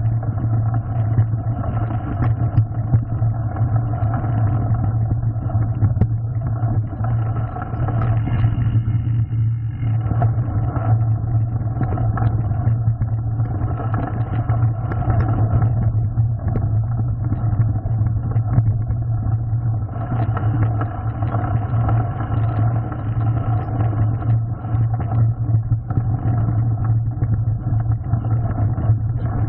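Mountain bike riding down a gravel forest trail: a steady, loud rumble of tyres on loose stone with wind noise and frame rattle, picked up by an action camera.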